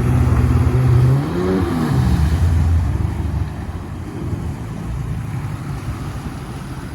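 Sea-Doo RX DI two-stroke jet ski engine running, its revs dropping about a second in, then carrying on at a lower, quieter note.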